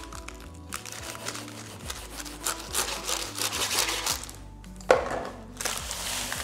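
A long knife cutting down through a tray of baked sweet shortcrust pastry, crunching and scraping in two spells, the second starting near the end, over background music.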